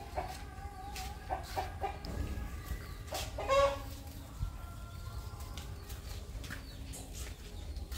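Short pitched animal calls, a few of them, the loudest about three and a half seconds in, over scattered clicks and a steady low hum.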